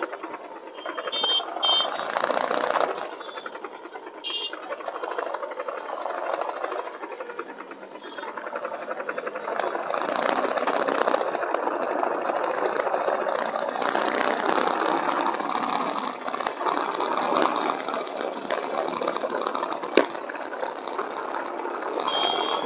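Motorcycle riding through city traffic, heard through an action camera: a continuous fast rattle and buzz from vibration, mixed with engine and road noise. It gets louder from about ten seconds in.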